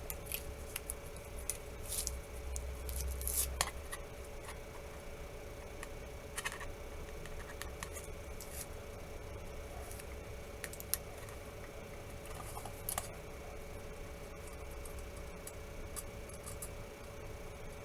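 Small sharp clicks, taps and scrapes of a phone's plastic parts being handled as a replacement screen is pressed into an LG K373's frame, busiest a couple of seconds in, over a steady faint hum.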